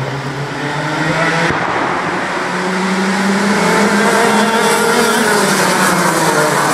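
A pack of racing go-karts on track, several kart engines running at once and getting steadily louder as they approach, their pitches rising and falling through the corners.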